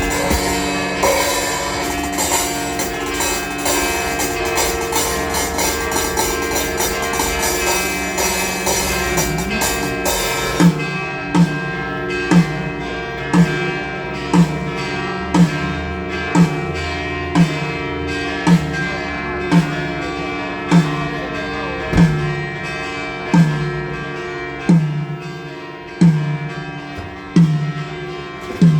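Band music from a live sound check, a dense full mix with held chords. About ten seconds in, the mix thins to the held chords and a single low drum struck about once a second, the hits spacing out slightly toward the end.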